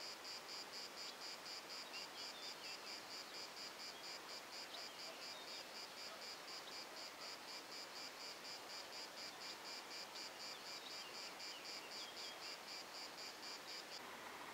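A cricket chirping in a steady, even rhythm of about five high chirps a second, which stops abruptly shortly before the end.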